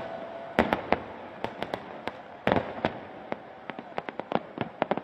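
Fireworks display: aerial shells bursting in a string of sharp bangs and pops at irregular intervals. The loudest reports come about half a second and two and a half seconds in, followed by a quicker run of smaller pops near the end.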